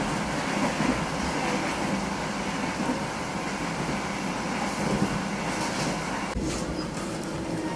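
Moving passenger train: a steady rumbling, rushing running noise, which drops abruptly to a quieter noise about six seconds in.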